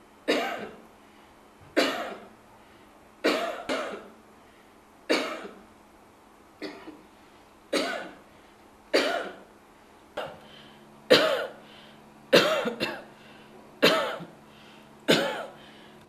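A person coughing over and over, about a dozen single coughs spaced a second or so apart, given as cough samples for an AI app that screens for tuberculosis. A faint steady hum runs underneath.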